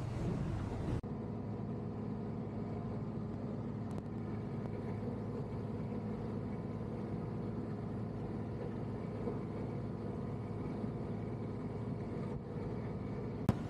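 An engine drones steadily at a constant pitch, with a sharp click near the end.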